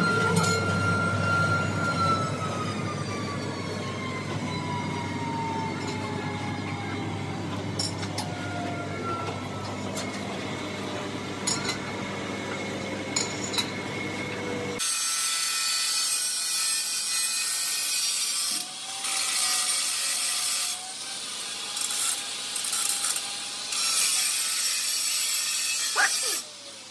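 A machine's whine falls steadily in pitch over a low hum as it runs down. About fifteen seconds in, an angle grinder grinds against a brake drum turning in a lathe, a loud hiss that breaks off briefly a few times.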